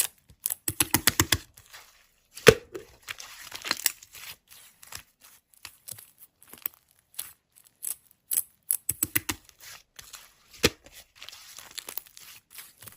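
Slime being squished and stretched by hand, giving irregular crackling clicks and pops, with a quick run of them at the start and a couple of sharper cracks.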